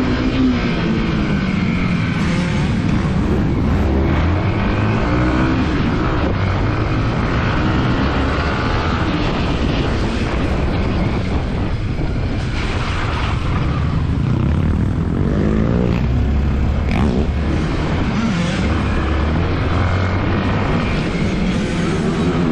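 Yamaha WR155R's single-cylinder four-stroke engine being ridden, its pitch rising and falling as the throttle is opened and closed.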